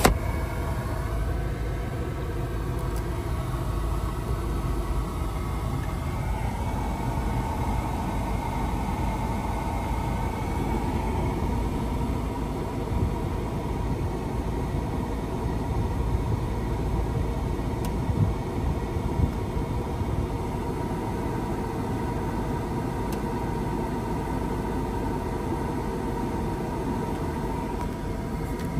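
BMW 4.4-litre twin-turbo V8 idling steadily in Park, heard from inside the cabin as a low rumble with a faint steady hum above it. A single click comes right at the start.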